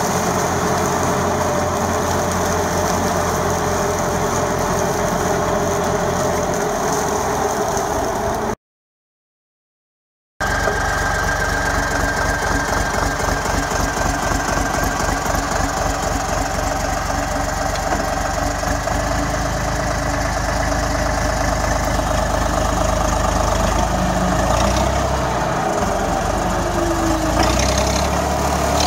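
Holder A55 tractor's diesel engine running steadily under load while driving a Röll double-rotor mulcher through grass. The sound drops out completely for about two seconds about a third of the way in, then the engine resumes, its note shifting near the end.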